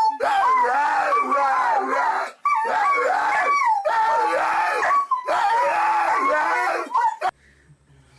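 A dog howling in three long, wavering, sliding cries, each about two seconds long, which stop abruptly about seven seconds in.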